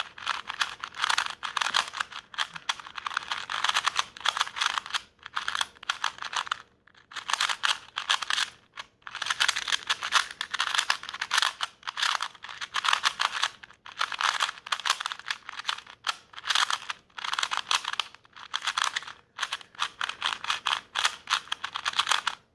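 KungFu 2x2 plastic puzzle cube being turned fast, its layers clacking in quick runs of clicks that stop and start every second or two.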